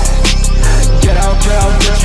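Loud hip hop beat: a deep sustained bass, a kick drum and quick, evenly spaced hi-hats under pitched melodic parts.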